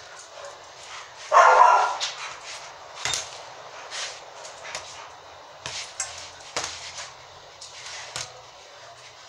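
Boxing gloves striking a small ball hung on a cord, a handful of sharp slaps spread out irregularly. A dog barks once, loudly, about a second in.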